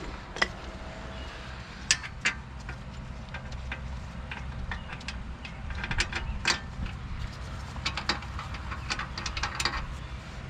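Scattered metallic clicks and knocks of a wheel hub and its bolts being handled and set in place, over a steady low rumble.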